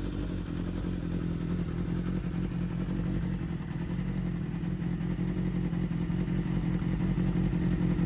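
1981 Honda CB750 inline-four engine idling steadily after its revs have settled, with no abnormal noise according to the seller.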